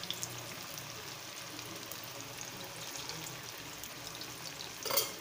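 Masala-coated anchovies (nethili) deep-frying in hot groundnut oil in an iron kadai: a steady, rain-like sizzle of bubbling oil. A brief louder crackle comes near the end.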